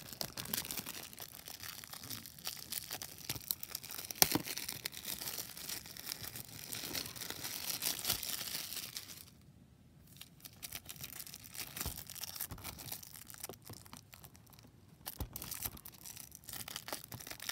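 Plastic shrink wrap being torn and peeled off a Blu-ray case: crinkling and crackling with many small sharp clicks. The crackling drops to a brief lull about halfway through, then starts again.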